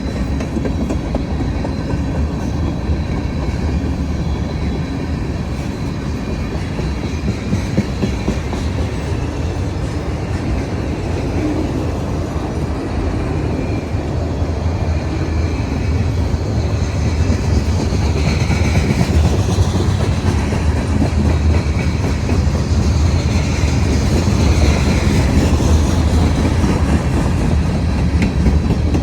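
Freight train cars rolling past on the CSX main line, the wheels rumbling and clacking on the rails in a steady stream. The sound grows a little louder about halfway through.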